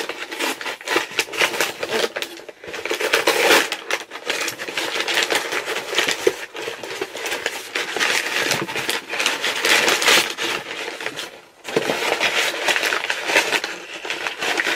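Packaging crinkling and rustling in irregular bursts of crackles as a parcel is unpacked by hand, with a brief lull about three-quarters of the way through.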